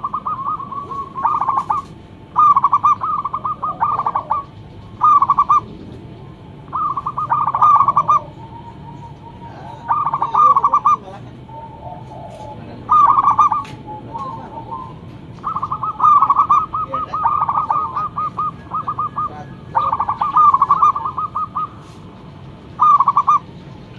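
Zebra dove (perkutut) cooing: phrases of fast, staccato coo notes at a steady pitch, repeated over and over with short pauses between them.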